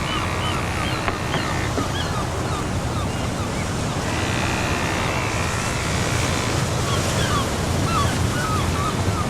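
Steady wind noise on the microphone, with short repeated chirps throughout and a faint steady whine for a couple of seconds in the middle.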